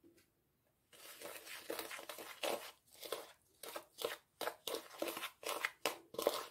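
Metal spoon stirring and scraping a damp mix of sugar, flour and oil in a bowl, in quick repeated strokes that start about a second in.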